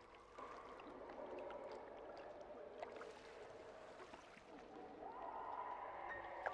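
Swimming-pool water lapping and gurgling against the pool side, with scattered small splashes.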